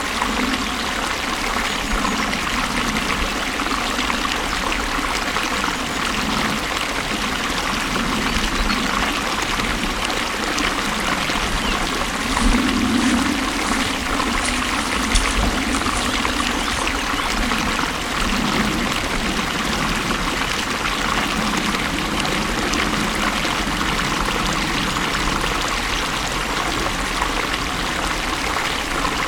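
Water flowing steadily over rocks, a continuous splashing and gurgling with small swells in level.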